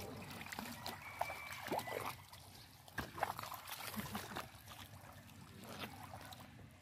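Shallow muddy water splashing and trickling as hands scoop and grope through it, with a few short sharp knocks.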